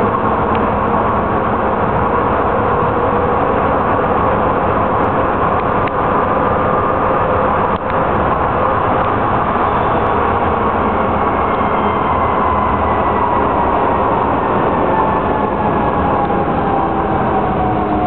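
Docklands Light Railway train running, heard from inside the carriage: a steady rumble of wheels on the track with the electric traction motors' whine. The whine falls in pitch over the second half as the train slows into the station.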